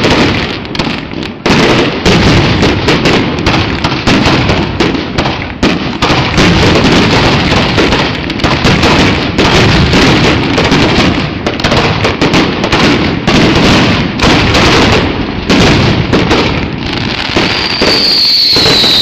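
Fireworks bursting in a rapid, nearly unbroken barrage of bangs and crackles. Near the end a high whistle falls steadily in pitch.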